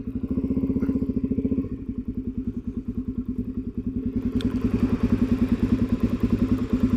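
Single-cylinder four-stroke engine of a 2009 Suzuki DRZ400SM motorcycle running steadily at low revs, an even rapid pulse, with a faint click about four and a half seconds in.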